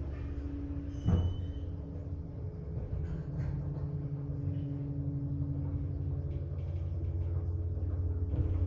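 Elevator machinery running with a steady low hum, with a single knock about a second in.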